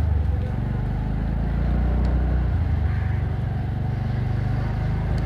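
TVS Ntorq 125 scooter's single-cylinder four-stroke engine running steadily while riding at low speed, a low, even drone with road noise.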